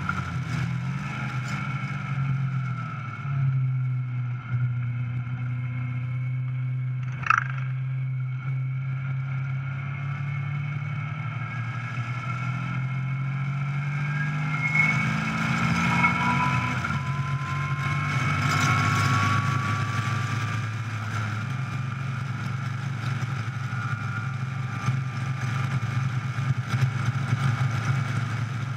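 Caterham 420R's four-cylinder engine running at speed on track, heard from an onboard camera: a steady note that dips and recovers a few seconds in, then climbs slowly in pitch from about halfway. A single sharp click about seven seconds in.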